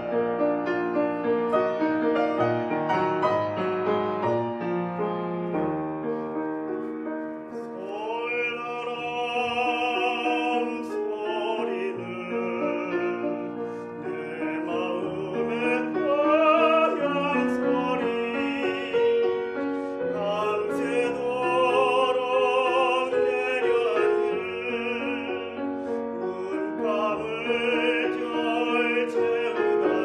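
A Pramberger grand piano plays alone at first. About eight seconds in, a tenor comes in singing a Korean art song with a wide vibrato, and the piano goes on accompanying him.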